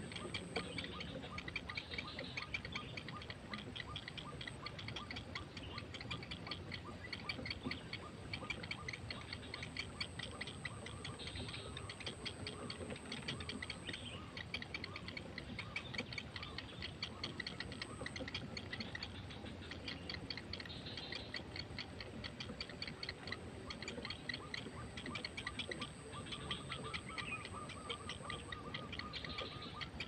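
Rapid, steady ticking chatter from striated heron nestlings begging at the nest, with a few higher squeaky calls mixed in.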